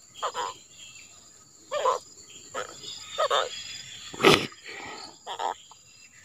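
Insects drone steadily at a high pitch. Over them come about six short croaking sounds, spaced roughly a second apart, as a hooked baung catfish is handled on the ground. There is one sharp knock a little over four seconds in.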